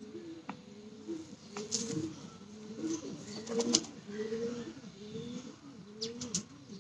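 Domestic pigeons cooing, several overlapping coos repeating steadily, with a few short clicks in between.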